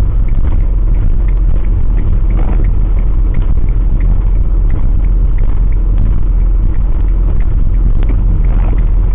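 Motorhome driving on wet tarmac, heard from a dashcam inside the cab: a loud, steady low rumble of engine and road noise, with scattered faint ticks.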